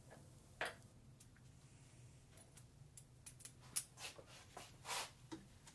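Faint scattered clicks and light scrapes of a bronze seawater pump and its mounting bracket being handled and pivoted into place by gloved hands, a little busier in the second half.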